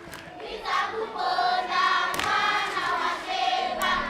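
A group of voices singing together, on held notes that waver in pitch.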